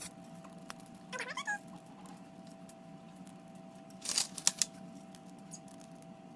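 A short wavering animal call about a second in, then a quick cluster of sharp clicks or taps about four seconds in.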